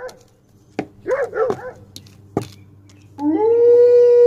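Two short rising-and-falling yelps about a second in and a couple of sharp clicks. Then, about three seconds in, a long, steady wolf-style howl starts and holds one pitch.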